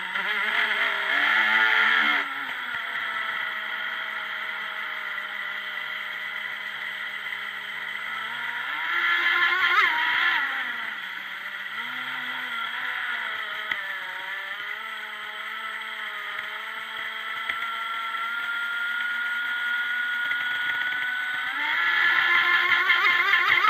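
Proboat Formula Fastech RC boat's electric motor and propeller whining, heard from on board, the pitch rising and falling with the throttle. It gets louder at full-throttle bursts near the start, about nine seconds in and near the end.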